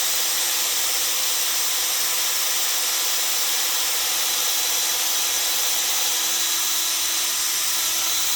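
Electric drill running steadily at one speed, a small bit boring a pilot hole through a metal hinge bracket into a wood door panel.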